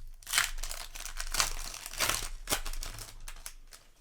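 Foil booster pack wrapper crinkling and rustling as it is handled, in a series of short bursts that fade out near the end.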